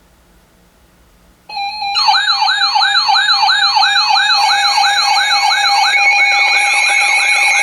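Electronic emergency-alert alarm sounding for a weather warning. A steady tone starts about a second and a half in, and half a second later a siren-like yelp joins it, sweeping up and down about three times a second over several layered steady tones.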